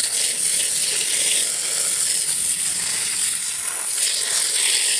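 Hose spray nozzle jet of water hissing steadily onto dry broken clay chunks in a plastic bucket; it starts suddenly as the nozzle is opened.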